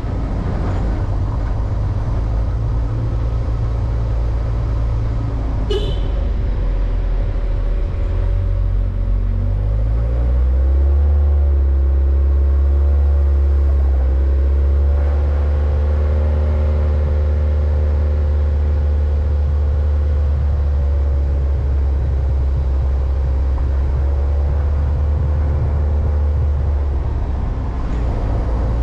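Vehicle engine running steadily, its pitch rising about ten seconds in and then holding. A brief high-pitched sound comes about six seconds in.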